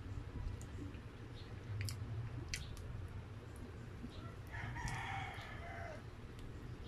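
A rooster crows once about four and a half seconds in, a call of about a second and a half that drops in pitch at the end. Around it are a few sharp wet clicks of someone eating and a steady low hum.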